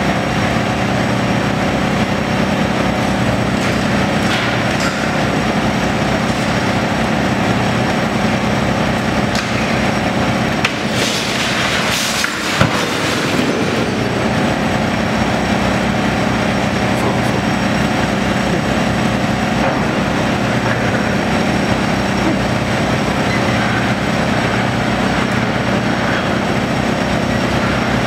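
Hitachi Zaxis 210 excavator's diesel engine running steadily under load while its demolition attachment tears into a building. About eleven seconds in there is a clatter of falling debris, ending in a sharp knock.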